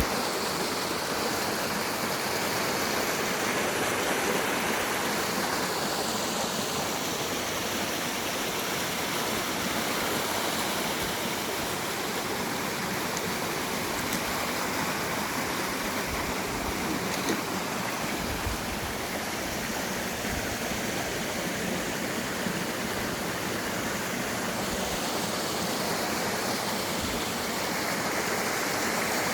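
Mountain stream running full after rain, its water rushing steadily over rocks and small falls.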